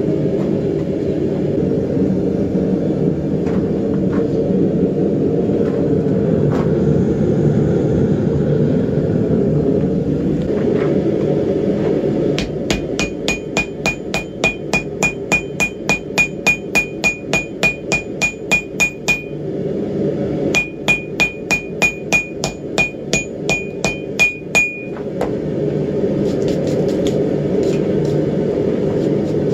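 Hand hammer blows on white-hot steel over a steel anvil, setting a forge weld of mild and high carbon steel for a wrapped-eye tomahawk. The blows come in two quick runs of about five strikes a second, each strike ringing from the anvil: the first run starts a little before halfway and lasts several seconds, and the second follows a short break. Before and after the hammering there is a steady low rushing noise from the forge.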